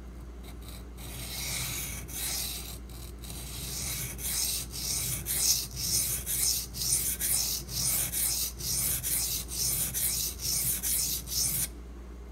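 A Benchmade Mini Griptilian's 154CM steel blade being stroked back and forth across a soaked 220-grit Pride Abrasives water stone, making a rhythmic gritty scraping. The strokes are light at first, settle to about two a second, and stop abruptly near the end.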